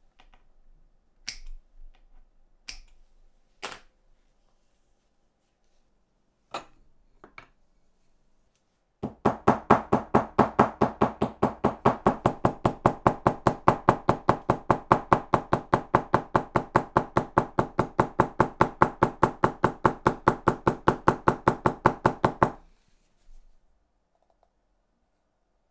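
A few separate light clicks and taps, then about nine seconds in a loud, very even run of knocks, four to five a second, that goes on for some thirteen seconds and stops abruptly.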